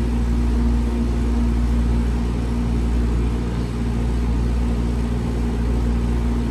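Steady low mechanical hum with a faint held tone, unchanging throughout.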